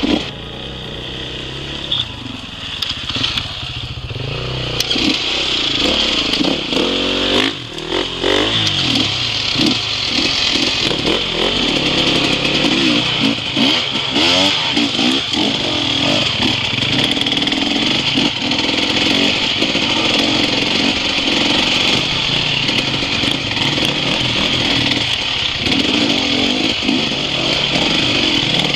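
Enduro motorcycle engine, heard from on the bike, revving up and down again and again as it rides over rough, rocky ground.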